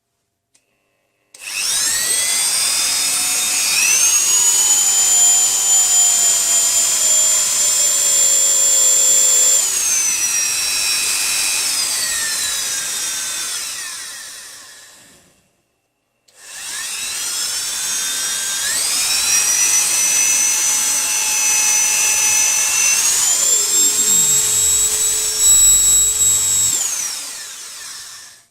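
A repaired Dremel 3000 rotary tool is switched on and run twice: a high motor whine that rises in pitch as the tool speeds up, then falls and winds down to a stop. The test run shows the tool, which had stopped switching on, working again.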